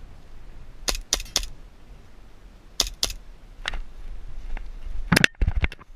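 Airsoft gunfire: sharp snapping shots, three in quick succession about a second in, two more near three seconds, and a louder cluster near the end.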